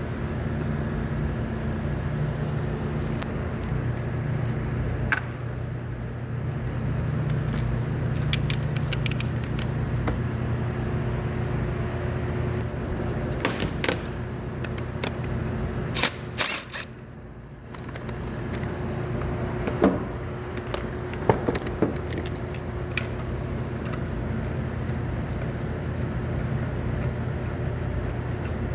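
Lexus IS250's 2.5-litre V6 idling steadily, with scattered sharp clicks and rattles over it and a brief dip in level about halfway through. The idle is that of an engine with a misfiring cylinder, put down to a burnt valve.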